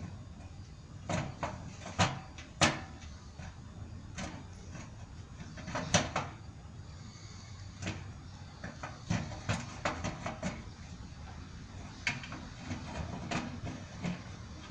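Irregular knocks, clanks and clicks of hand work on the RV's fuel tank and fittings, a few sharp strikes standing out, with a steady low rumble underneath.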